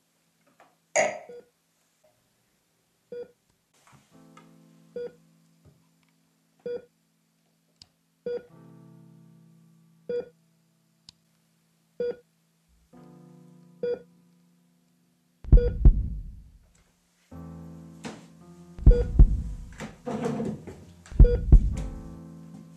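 Film score music: a single keyboard note repeated slowly, about every two seconds, over low sustained synth tones, growing louder with three heavy, deep bass hits in the last third. A sharp hit about a second in.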